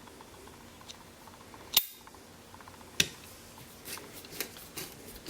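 Handling of a multi-bit screwdriver and its steel bits: two sharp clicks about a second apart, then a run of lighter clicks and taps.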